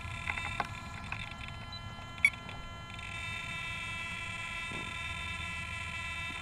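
Steady high-pitched electronic whine made of several tones at once, with a few light clicks near the start and one sharp click about two seconds in, from handling at the grounded RC helicopter.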